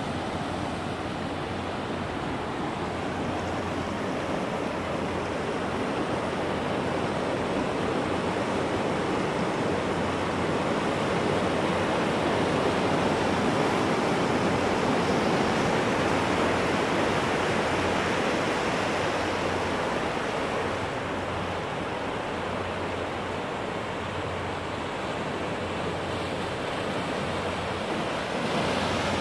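Muddy flash-flood water rushing down a desert arroyo: a steady rushing noise that swells a little in the middle.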